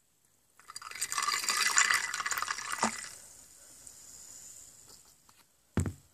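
Cola poured from a bottle into a glass, splashing and fizzing for about two seconds, then a softer fizz of bubbles that fades away. A short knock comes near the end.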